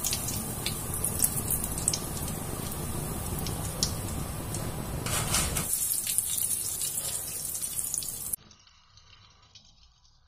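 Hot oil sizzling and crackling in a kadai as deep-fried sukhiyan balls, fried to doneness, are lifted out on a wire spider strainer. The sizzle stops abruptly a little over eight seconds in.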